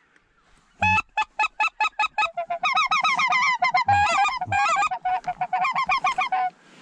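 Mouth-blown goose calls honking, starting about a second in as a fast, evenly spaced series and then thickening into continuous overlapping gabbling as several callers join, calling to lure passing geese toward the blind.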